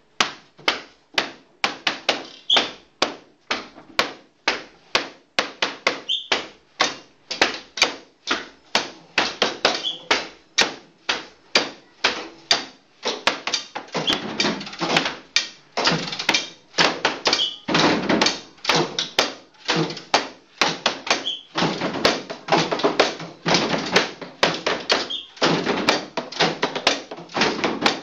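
Repeated sharp knocks and taps on hard objects, an irregular two to four a second, busier and louder in the second half.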